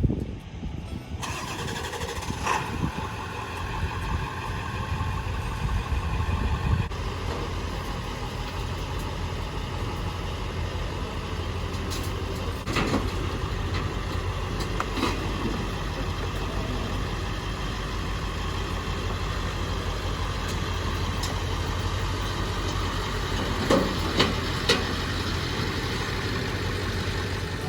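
Truck engine starting about a second in, then running steadily, with a few short clicks and knocks over it.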